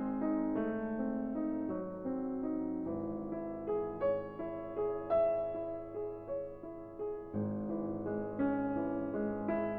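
Background music: a piano or electric-piano melody with steady, even note changes.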